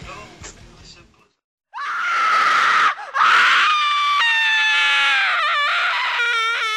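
A long, loud human scream starts about two seconds in, breaks off for a moment, then carries on, sliding down in pitch and slowly fading.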